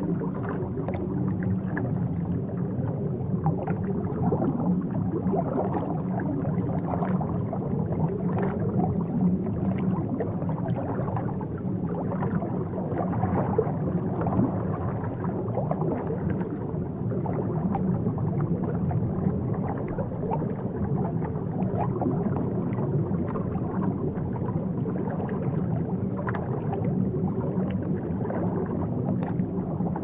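Steady low underwater rumble of bubbling, gurgling water, with many small pops throughout.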